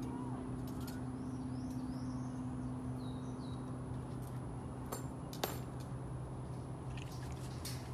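Outdoor ambience: a steady low hum with scattered bird chirps, and two sharp clicks about five seconds in.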